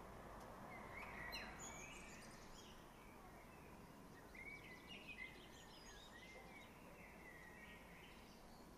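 Faint birdsong over near silence: a small songbird gives two phrases of high twittering, a short one about a second in and a longer one from about four seconds in to near the end.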